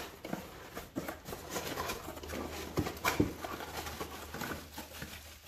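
Plastic packaging and a fabric tool bag being handled and rummaged through: irregular rustling and crinkling with scattered light taps.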